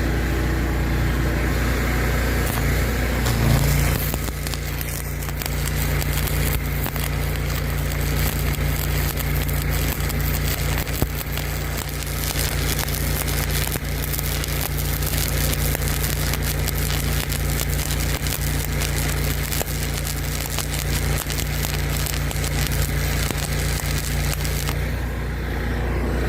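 Arc welding on a bulldozer blade: a dense, steady crackle that starts a few seconds in, runs for about twenty seconds and stops suddenly near the end, with an engine running underneath the whole time.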